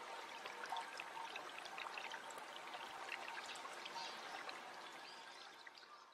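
Water running and trickling: a steady flowing hiss dotted with small drips and splashes, fading away near the end.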